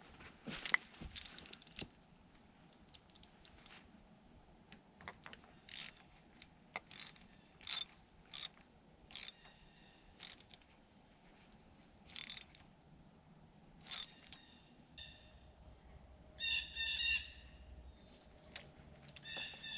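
Hand ratchet wrench clicking in short, separate bursts while a new grease (zerk) fitting is threaded into the bucket-pin boss of a mini excavator. A short run of squeaking comes about three-quarters of the way through.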